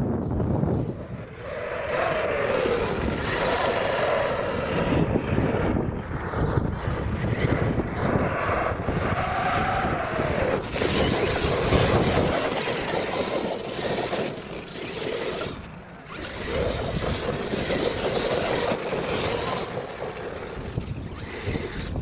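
Electric brushless motor of an Arrma Outcast 8S 1/5-scale RC truck whining up and down in pitch several times as it accelerates and lets off. The tyres churn and throw up sand, and there is wind rumble on the microphone.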